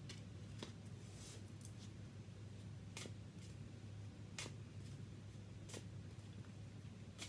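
Tarot cards being shuffled by hand: faint, crisp papery snaps coming irregularly every second or so, over a steady low hum.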